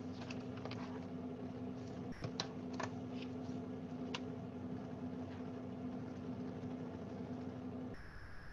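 Scattered clicks of a computer keyboard being typed on, mostly in the first four seconds, over a steady low hum from an open video-call microphone. Near the end the hum cuts out and a faint steady high whine takes over.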